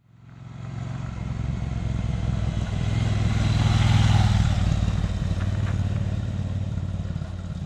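Motorcycle engine running as the bike rides by. The sound rises from a fade-in to its loudest about four seconds in, as the bike passes close, then slowly drops away.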